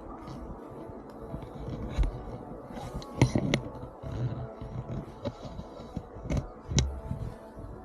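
Scattered thumps and scrapes in snow, the sharpest about three seconds in and near the end: a fallen snowboarder struggling to get back up in deep snow.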